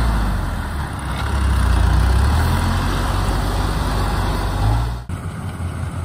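Engine of a small farm tractor running hard as it hauls a full load of rice sacks through a boggy ditch, a loud low hum that swells and eases. About five seconds in it cuts abruptly to the quieter running of a rice combine harvester.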